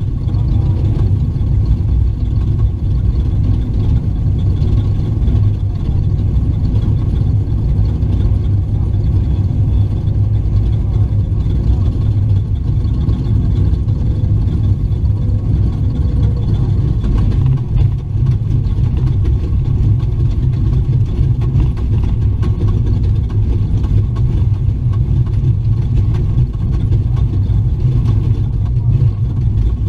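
Raptor-based desert race truck running, heard from inside the cab: a loud, steady low rumble of engine, drivetrain and tyres on dirt, with a brief dip about 18 seconds in.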